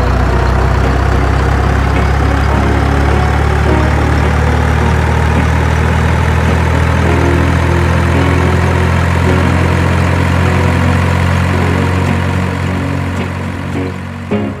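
Heavy vehicle engine idling steadily with a deep, even rumble, fading slightly near the end.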